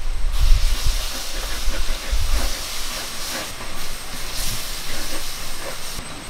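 Onion-tomato masala with freshly added spice powders sizzling in hot oil in a pot, with a spatula stirring and scraping through it. The sizzle starts about a third of a second in and holds steady.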